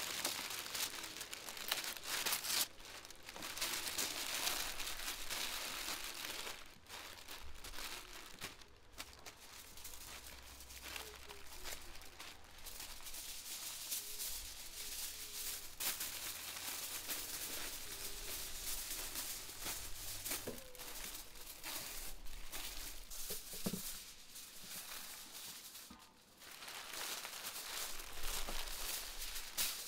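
Baking paper and aluminium foil rustling and crinkling as they are folded and pressed around a large cut of raw lamb. The crinkling is loudest over the first few seconds and again near the end.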